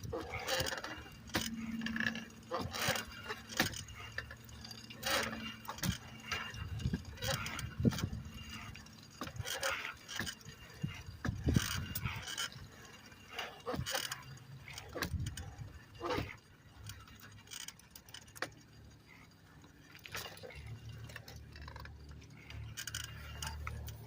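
Irregular clicks and knocks, scattered unevenly through the stretch, over a faint steady low hum.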